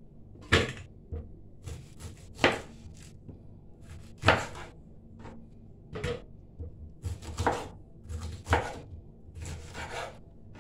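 A large kitchen knife chopping peeled lemons on a wooden cutting board, with pieces dropped into a plastic blender jar: about seven sharp chops and knocks, a second or two apart.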